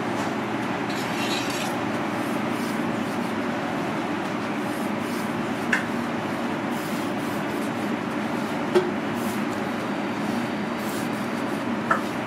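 A kitchen knife slicing through crisp roast duck and knocking on a wooden cutting board: three short sharp knocks a few seconds apart, the middle one the loudest, over a steady, even rushing background noise.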